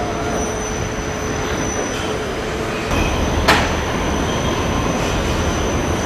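Car assembly line machinery running: conveyors and rail-guided carriers give a steady mechanical rumble that grows louder about three seconds in, with one sharp knock soon after.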